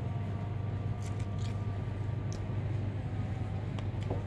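Steady low hum of room air-conditioning, with a few faint light clicks and taps over it.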